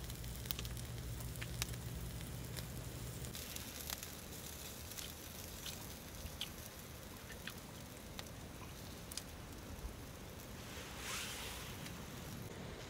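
Scattered small clicks and crackles over a faint background, with a low hum that fades out a few seconds in and a brief hiss about eleven seconds in.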